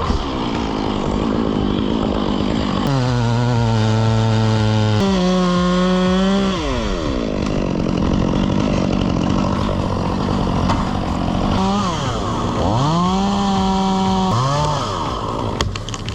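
Chainsaw engine running at high revs, with its pitch falling as the throttle is let off and climbing again as it is opened, about twice.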